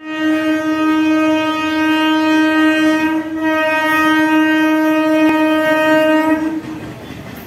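Electric local train (EMU) horn sounding two long, loud blasts on one steady pitch, split by a brief gap about three seconds in. As the horn stops near the end, the rumble of the approaching train is left.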